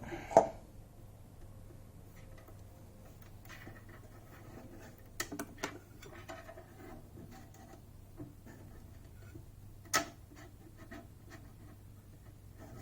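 Faint scratching and light clicking of a plastic zip tie probing inside a coffee machine's housing for a dropped nut, with a few sharper clicks about five and ten seconds in, over a steady low hum.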